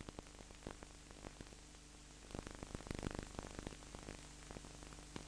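Low hiss and steady mains hum from an old analogue recording, with faint irregular crackling clicks that thicken around the middle.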